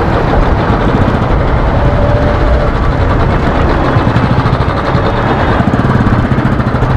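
Royal Enfield Classic 350's single-cylinder engine running at low speed in slow traffic, a steady fast, even pulsing beat.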